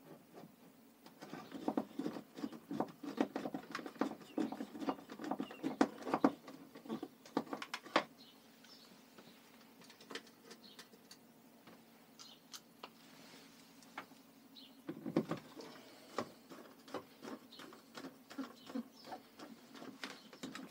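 Irregular clicks, taps and scrapes of hands fitting a plastic pressure-washer nozzle holder onto a wooden wall. They come thickest in the first half and thin out after about nine seconds.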